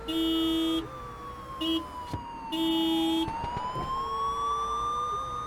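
Traffic sound effect playing back: three car-horn honks, the first and last long and the middle one short, over a siren wail that slowly falls in pitch and then rises again.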